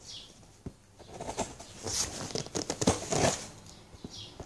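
Plastic shrink wrap being cut and pulled off a package, crinkling and tearing in repeated bursts with sharp clicks, loudest about two and three seconds in.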